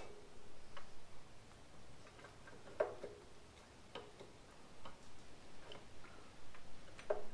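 Irregular light clicks and knocks, a handful spread over several seconds with the sharpest about three seconds in, from hand work on parts in the opened rocker box of a Harley-Davidson Sportster EVO engine.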